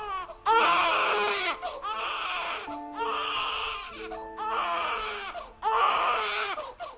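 Newborn baby crying in repeated wails about a second each, with short breaths between, over soft background music.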